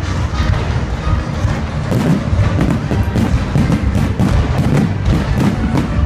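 Aerial fireworks barrage: a rapid string of bangs and crackles, several a second, over a continuous low rumble, growing denser about two seconds in.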